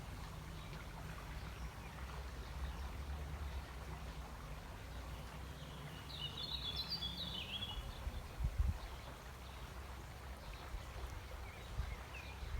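Outdoor ambience with a steady low rumble and a few low thumps. About six seconds in, a bird gives a quick burst of high chirping notes lasting about a second and a half, with one faint chirp near the end.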